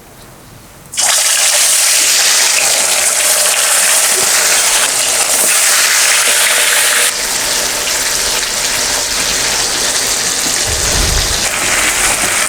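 Marinated fish pieces hitting hot oil in a karahi, starting a loud, steady sizzle suddenly about a second in as the fish fries.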